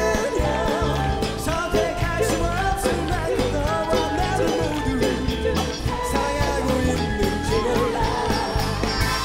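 Live pop-rock band playing, with a male voice singing a melody over drums, bass and guitar.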